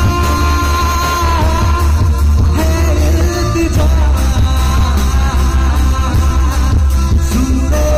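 A live band playing loudly through a PA: electric bass, electric guitar, keyboard and a barrel hand drum, with a man singing over it and a heavy, steady bass.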